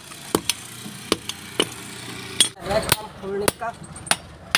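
Hammer striking a steel chisel to break up a concrete floor: a series of sharp, separate metallic blows, irregularly spaced about half a second to a second apart.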